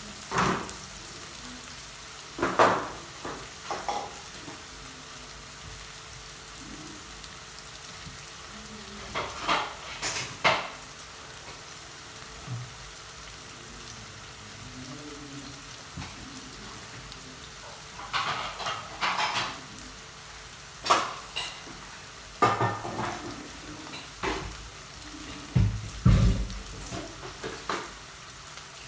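Garlic-ginger paste and onions sizzling in hot oil in a pot, with a spoon stirring and scraping the pot every few seconds and a few knocks near the end.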